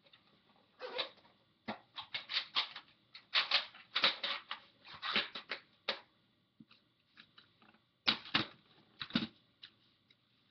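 Plastic VHS tape cases and cassettes being handled off-camera: irregular clicks, clacks and rustles, busiest in the first half, with a few louder clacks about eight to nine seconds in.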